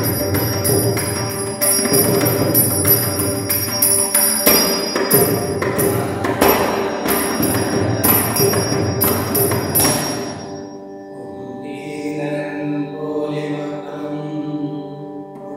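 Ottan Thullal accompaniment: a drum and ilathalam hand cymbals play the Aranguthaalam rhythm in rapid strokes, the cymbals ringing bright and metallic. About ten seconds in the percussion stops and steady held tones take over, the opening of the sung verse.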